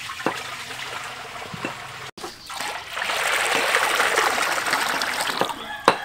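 Water poured in a steady stream from a metal pot into a large black wok, splashing onto the wok's bottom. There is a brief break about two seconds in, after which the pouring is louder and closer.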